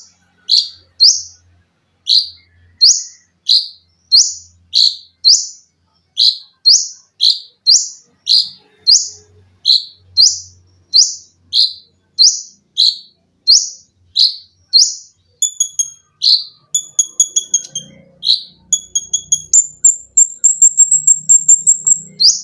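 Small minivet (konin) singing: loud, shrill swept whistled notes repeated about twice a second. From about two thirds of the way in it switches to quick stuttering notes and then to a fast, continuous high trill, the 'sewing-machine' phrase.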